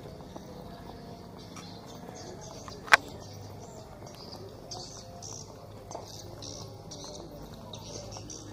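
Outdoor alley ambience with steady high chirping throughout, and a single sharp click about three seconds in.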